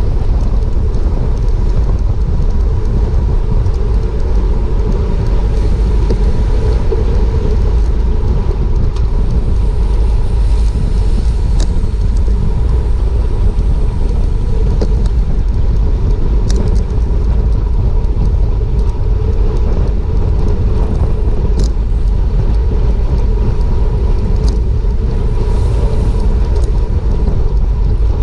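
Steady wind rush and low rumble on the microphone of a GoPro riding on a racing bicycle at speed, with a few short sharp ticks.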